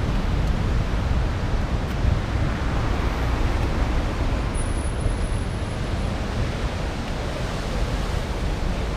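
Steady rush of wind on the microphone mixed with road traffic and breaking surf, with a car going by on the road. A brief, faint high whistle sounds about halfway through.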